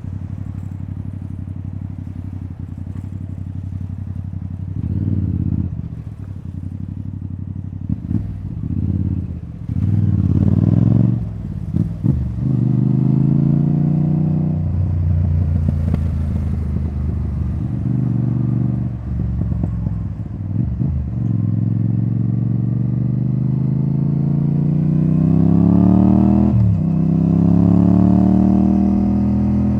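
2024 Yamaha XSR700's CP2 parallel-twin engine through a debaffled Akrapovič titanium exhaust. It runs at low revs at first, is blipped a few times, then pulls up through the gears: long rising revs, each broken by a short dip at the upshift, the last one near the end.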